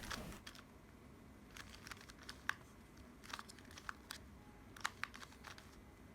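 Faint, irregular plastic clicks of a 2x2 puzzle cube's layers being turned in quick succession while an algorithm is performed, about a dozen clicks spread unevenly.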